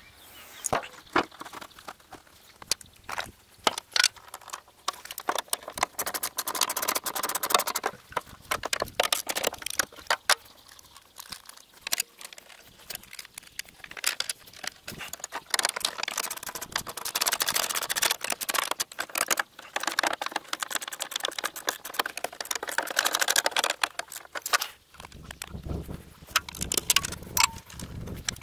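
Irregular clicks, knocks and light metal clatter, with rustling between them, as hands handle parts and covers on a portable bandsaw mill's engine.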